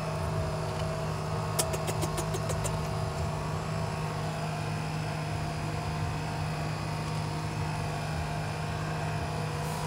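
Car engine idling: a steady low hum, with a quick run of light clicks about two seconds in.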